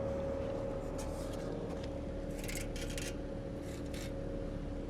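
Outdoor heat pump units running: a steady hum carrying two steady tones. A few brief rustling scrapes come between about one and four seconds in.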